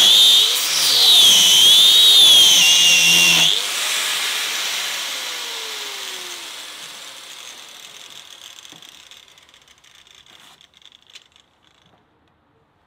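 Bosch 800-watt angle grinder with a 1 mm steel slitting disc cutting into the Barronium-armoured shackle bar of a LiteLok X1 Moto D-lock, its high whine wavering in pitch with the load. About three and a half seconds in it is taken off the cut and switched off, and it winds down with its pitch falling slowly as it fades over several seconds. The cut stops about halfway through the bar because the slitting disc has worn down.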